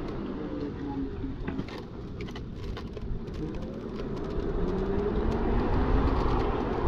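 Electric bike's QS 273 hub motor whining under way, dropping in pitch as the bike slows, then rising again as it speeds back up from about four seconds in, over a low rumble of wind and road, with a few light clicks in the slow stretch.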